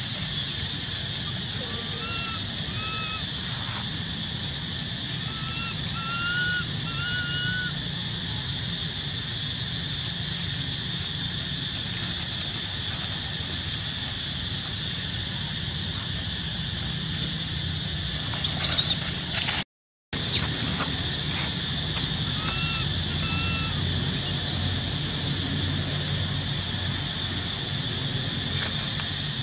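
Outdoor forest ambience: a steady high-pitched insect drone, with a few short faint whistled calls, three or four in two groups early on and a pair later, and some brief rustles and clicks of dry leaves. The sound cuts out completely for about half a second two-thirds of the way through.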